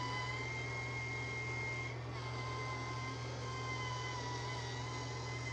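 Electric spinning facial cleansing brush running against a soapy face: a steady high motor whine over a low hum, its pitch wavering slightly as the brush head is pressed to the skin.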